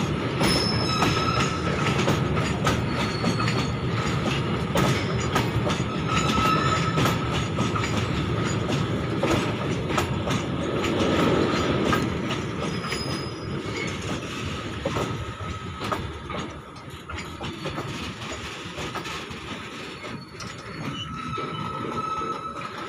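Freight wagons loaded with steel rails rolling past at close range: a steady rumble and clatter of wheels on track, with brief high wheel squeals now and then. It is loudest for the first half, then eases a little.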